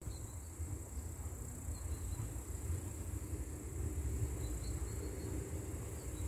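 Distant ED4M electric train approaching with a low rumble that slowly grows louder. Over it runs a steady high chirring of insects, with a few short bird chirps.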